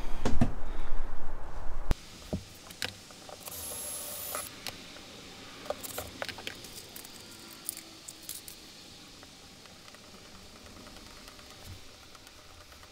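Hands handling small hardware and tools at a boat cabin wall: scattered small clicks and taps. Before them, about two seconds of loud rustling and rumble that cuts off suddenly.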